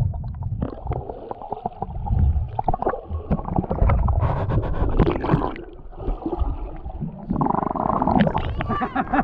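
Shallow sea water heard by a camera held underwater: muffled gurgling and rumbling with scattered crackling clicks as the water moves around the camera.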